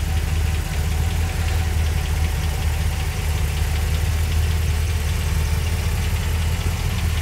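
HEMI V8 engine of a Willys hot-rod truck idling steadily.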